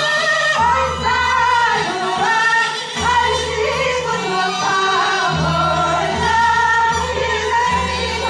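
A song performed with a singing voice carrying a sliding melody over held bass notes.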